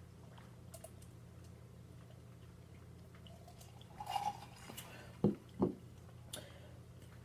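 A sip of Coca-Cola about four seconds in, followed by two short gulps as it is swallowed, over a faint steady hum.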